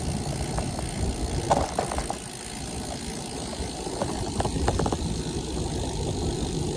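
Steady low rumble of wind and road noise while riding a bicycle on asphalt, with a few short clicks and rattles from the bike about a second and a half in and again around four to five seconds in.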